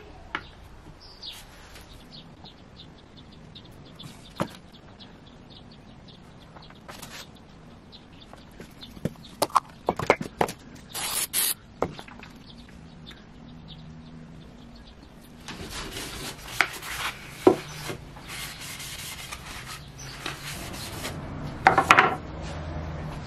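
Walnut tray being worked by hand: sandpaper rubbing over the wood in quick rasping strokes through the second half, after scattered clicks and knocks as the tray and clamps are handled.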